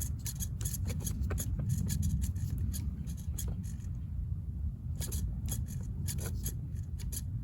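Handling noise from a plastic RC toy and its controller: irregular clicks and rubbing over a steady low rumble.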